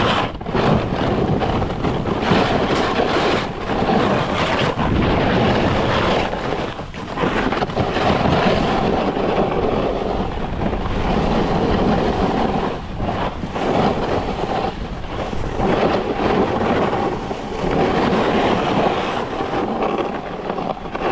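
Rushing wind on the microphone and skis hissing over snow during a fast downhill ski run. The noise swells and dips every second or two.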